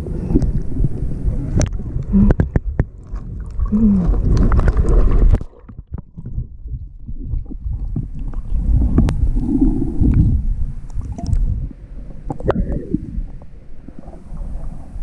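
Water gurgling around a kayak as it floats the river, with low rumbling wind on the microphone and scattered knocks against the hull. The noise drops off suddenly about five seconds in, then comes back quieter and uneven.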